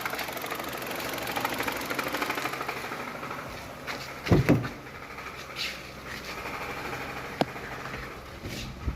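Hyundai Creta 1.6 engine idling with a rhythmic pulsing noise from the engine bay, the fault the owner links to the air conditioning not cooling at low revs. The pulsing eases about three and a half seconds in, followed by a low thump, a sharp click a few seconds later and another thump near the end.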